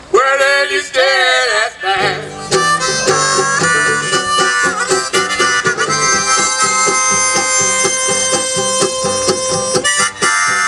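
Harmonica playing long held chords over a strummed banjo in an old-time string-band tune. It opens with about two seconds of swooping, sliding tones before the steady rhythm sets in.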